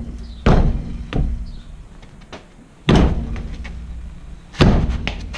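A boot kicking the tyre of a Holden Commodore's alloy wheel that is seized to the brake rotor, to knock it free: three heavy, deep thuds about two seconds apart, with lighter knocks in between.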